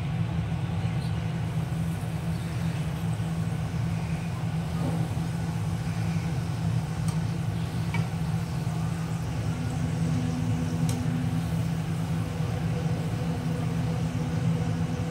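A puri deep-frying in hot oil in a small kadhai, pressed with a wire skimmer, under a steady low mechanical drone that is the loudest sound. A faint steady hum joins about halfway through.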